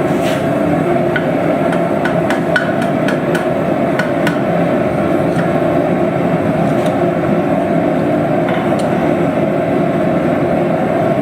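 Light hammer taps on metal, a quick irregular run in the first four seconds and a few more later, over a loud steady low roar.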